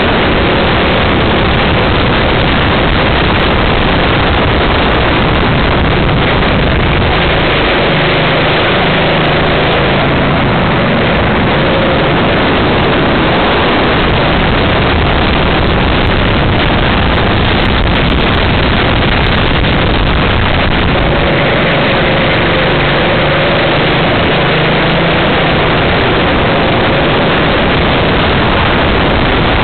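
Racing kart engine running hard at speed, heard from a small camera mounted on the kart: a loud, dense, distorted wash of engine and wind noise with the engine note wavering as the kart goes through corners.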